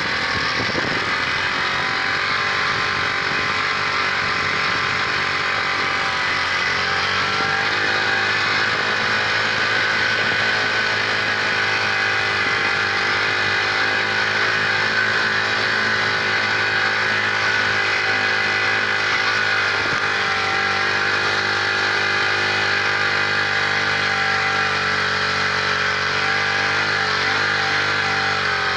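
Lynx 50 minibike engine running steadily while riding, its pitch shifting a little about six or seven seconds in and then holding fairly even.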